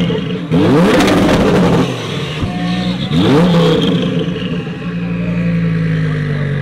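A car engine is revved twice, its pitch climbing quickly each time and falling back. It then settles into a steady idle.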